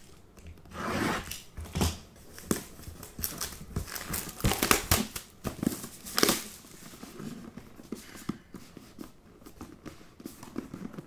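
Plastic shrink-wrap being crinkled and torn off a sealed trading-card box, in irregular rustling bursts that are loudest around the middle.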